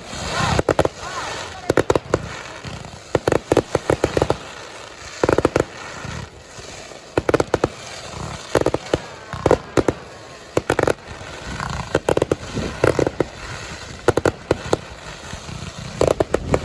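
Aerial fireworks going off: clusters of sharp crackling bangs, several in quick succession, repeating every second or two.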